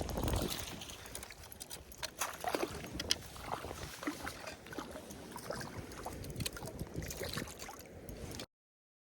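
Water splashing and gurgling in irregular small bursts, with light clicks and knocks mixed in; the sound cuts off abruptly near the end.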